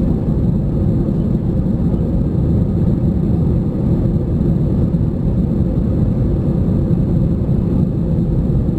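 Steady low rumble inside an Airbus A320 airliner's cabin as it moves along the ground, from its jet engines and rolling wheels; the level holds even, with no spool-up.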